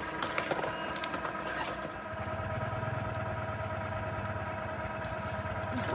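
A steady low motor hum, stronger from about two seconds in, with a few faint steady tones held above it.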